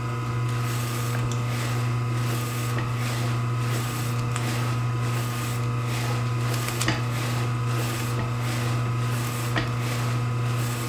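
Beswood 250 electric deli slicer's motor humming steadily as its 10-inch circular blade spins, while smoked turkey is pushed across it on the carriage: a rasping swish of the cut repeats about twice a second with each pass.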